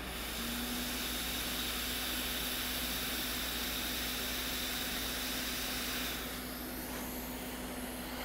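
Hot air rework station blowing on a logic board to heat a capacitor off a donor board: a steady rushing hiss of air with a low hum from the station's fan. The hiss falls away about six seconds in while the hum carries on.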